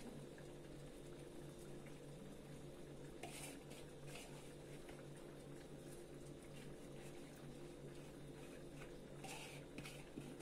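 Faint steady low hum with a light simmer from a clay tagine on a gas burner. A few brief soft rustles come as the last onion and marinade are scraped and tipped from a bowl into it, about three seconds in and again near the end.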